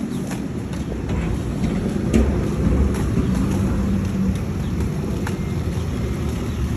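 Low rumble of city street traffic and wind on a handheld phone's microphone, with scattered light clicks. A steady low engine hum comes in about two seconds in and stops a couple of seconds later.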